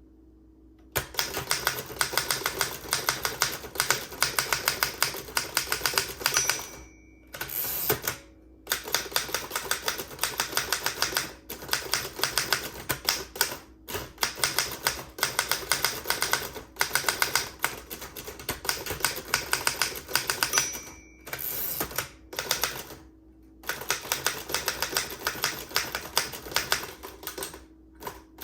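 1917 Royal 10 manual typewriter typed in quick runs of key strikes. Twice, about 7 and 21 seconds in, the margin bell dings once near the end of a line, followed by a pause and a short rasp of the carriage being returned.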